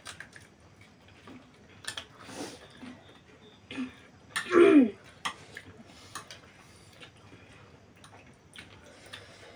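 Eating at a table: forks and spoons clicking and scraping on ceramic plates while noodles are eaten. A brief voiced sound from one of the eaters about four and a half seconds in is the loudest thing.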